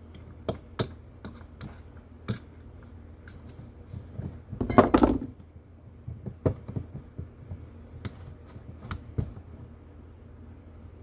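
Small metal carburetor parts and hand tools clicking and tapping on a workbench during hand reassembly: scattered light clicks, with a louder scraping rustle about five seconds in. A faint steady low hum runs underneath.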